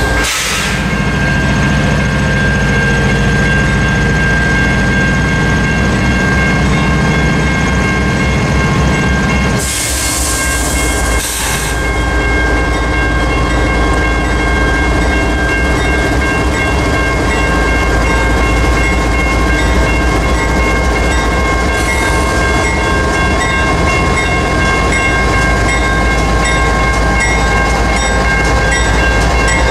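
GE Evolution-series diesel locomotives rolling slowly through a level crossing with their engines running, while the crossing's General Signals Type 1 electronic bell rings steadily. Two short bursts of hiss come about ten and eleven seconds in.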